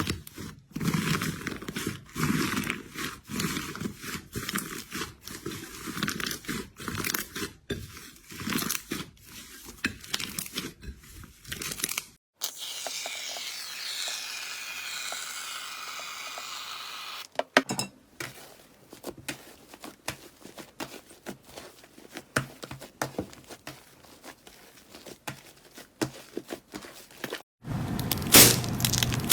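Slime being handled, making dense, irregular crackling and crunching pops. The texture changes at each of several cuts, with a smoother hissing stretch a little under halfway through.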